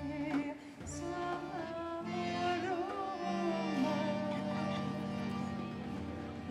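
Live acoustic folk music from a small band: a wavering melody line over a steady held drone, with a few hand-drum strikes in the first second.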